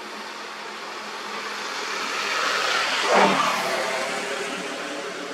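A motor vehicle passing by: its sound swells, peaks a little past halfway, and fades, with its pitch dropping as it goes past.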